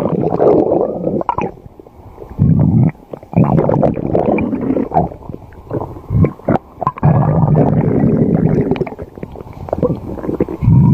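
Stomach growling: long, loud low rumbles in several bouts, with short breaks about two and six seconds in.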